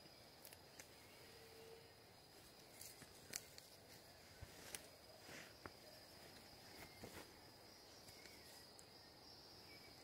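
Faint, steady high-pitched insect trill, a cricket-like chirring held on one note, with scattered light clicks and crackles of footsteps on dry leaf litter.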